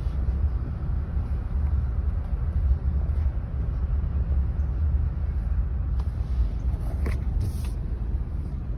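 Steady low rumble of a car's tyres and engine heard from inside the cabin while driving slowly, with a couple of faint clicks about seven seconds in.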